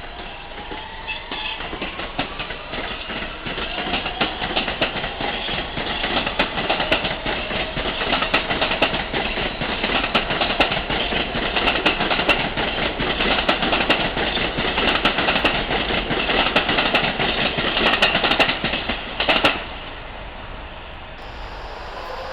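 Subway train running: a motor whine rises in pitch over the first few seconds as it picks up speed, and the wheels click steadily over rail joints. The sound drops off suddenly near the end.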